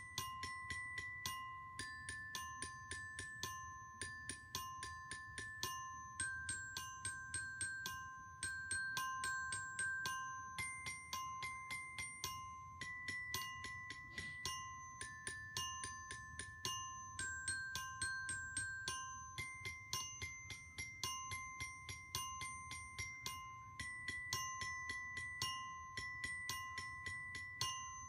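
Soft background music on a bell-toned mallet instrument like a glockenspiel, playing a simple tune of quick, evenly spaced notes. One note repeats throughout under a higher note that changes every couple of seconds.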